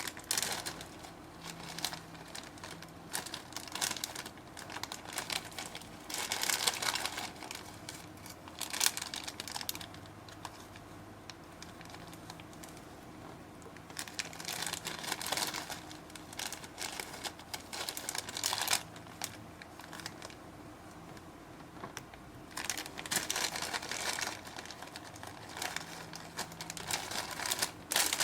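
Slime being squished and stretched by hand, with irregular crackling and popping clicks that thicken into denser bursts of crackle several times.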